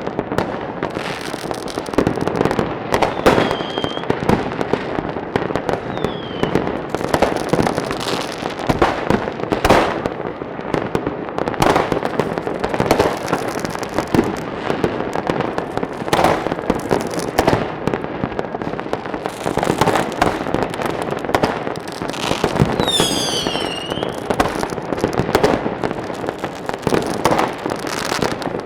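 Fireworks going off without a break: dense crackling and popping with frequent sharp bangs. A few short whistles fall in pitch, the clearest about two-thirds of the way through.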